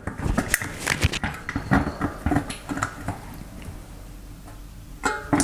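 Clicks and light metal knocks of a bicycle rear wheel and drive belt being handled and fitted, busiest in the first couple of seconds, with a short sharp clatter near the end.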